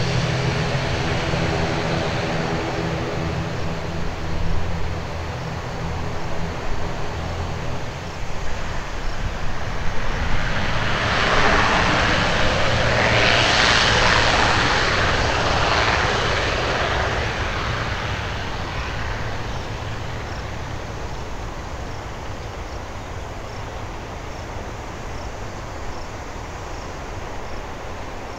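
Twin turboprop engines and propellers of an ATR 72-600 airliner, a steady droning hum that swells to a loud, broad roar about halfway through as the engines are run up for takeoff, then fades steadily as the aircraft rolls away down the runway.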